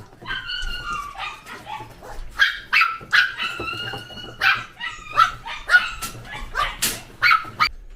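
Dog whining and yipping: a string of short, high-pitched calls through the whole stretch, some drawn out briefly as thin whines, others sharp and clipped.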